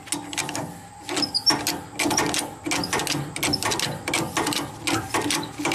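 Manual hydraulic cab-tilt pump on an LMTV military truck being worked with a pump bar: a fast, uneven run of mechanical clicks and knocks with each stroke as it pumps the cab up.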